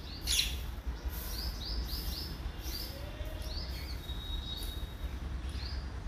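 Rose-ringed parakeets chirping: short high calls, a quick run of several about one and a half to two seconds in, and one harsher, louder call just after the start, over a steady low rumble.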